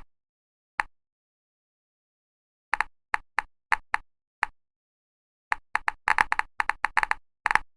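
Short, sharp pop sound effects, one for each bounce of an animated ball: single pops a half-second to a second apart at first, then coming fast and overlapping over the last two seconds as more balls bounce.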